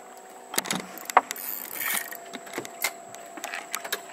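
Scattered knocks and clicks of gear on a small fishing boat's deck as a hooked snook is fought, with a short hiss of noise about two seconds in and a faint steady hum underneath.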